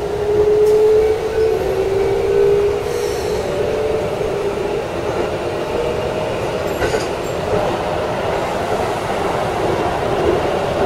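Keikyu electric train running, heard from the front cab: a steady rumble of wheels on rail under a motor whine that climbs a little over the first few seconds, with a couple of faint clicks.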